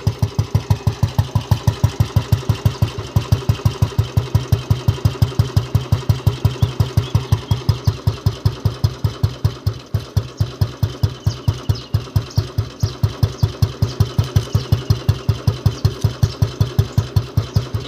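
Old Royal Enfield Bullet's single-cylinder four-stroke engine at slow idle, a steady, even thump of exhaust beats about five times a second: the classic 'dug dug' bullet sound.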